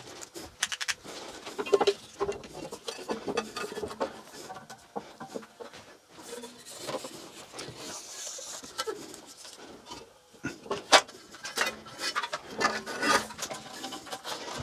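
A long flexible tape measure being fed around a bandsaw's wheels by hand: rubbing and sliding of the tape against the wheels and frame, with scattered clicks and one sharp knock about eleven seconds in.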